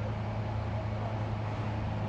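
Steady low mechanical hum of a running engine or motor, unchanging in pitch and level, over a background of noise.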